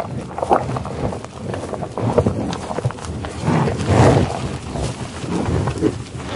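A bison (buffalo) sniffing and eating in tall grass: irregular breathy sniffs and snuffles, with the loudest breath about four seconds in.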